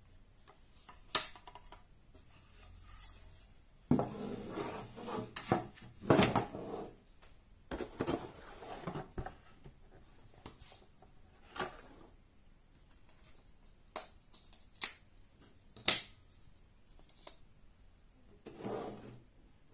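Wooden folding whiteboard easel being handled on a table: the pine frame and legs knock, click and rub against each other and the tabletop, with stretches of scraping and several sharp clicks.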